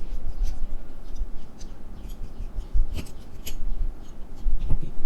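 Small metal clicks and scrapes of a screwdriver unscrewing the tiny back-case screws of a Casio TRI-10W watch, with two sharper clicks about three seconds in.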